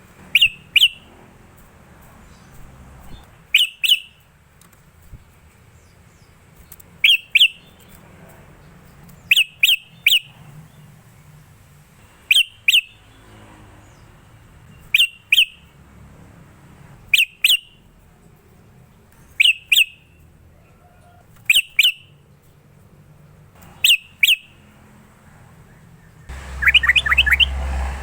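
Yellow-vented bulbul calling: short, sharp clusters of two or three notes repeated about every two to three seconds. Near the end comes a quicker run of notes over a louder low hum.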